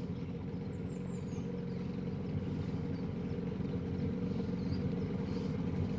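Johnson 9.9 hp outboard motor running steadily, an even low hum.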